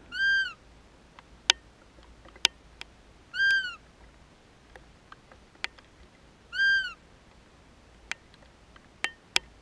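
Roe deer call blown three times, about three seconds apart, giving short high squeaks that rise and fall in pitch to imitate a roe doe's fiep and draw in a buck. A few sharp clicks fall between the calls.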